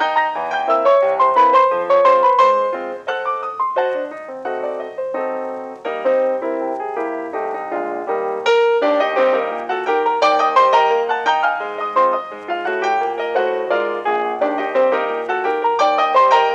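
Background piano music, a steady flow of many quick notes.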